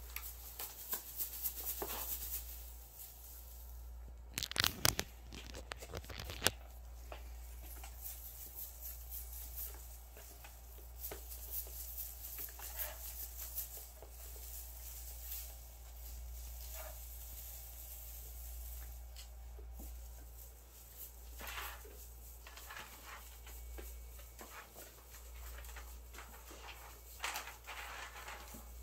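Crinkly plastic lure of a wand cat toy crackling and rustling in irregular bursts as it is swished and swatted by kittens, loudest about five seconds in. A low steady hum runs underneath.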